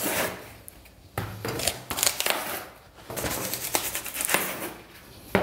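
White foam packing sleeves being pulled and slid off the legs of a chair's star base: repeated rustling, scraping handling noise in several bouts, with a sharp knock near the end.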